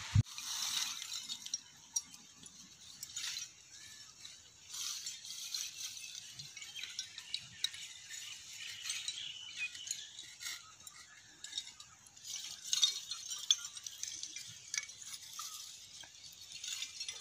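Small twig fire crackling, with light clinks of lump charcoal pieces knocking together as they are piled on.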